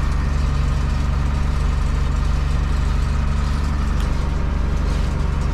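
New Holland TM140 tractor's diesel engine running steadily, heard from inside the cab.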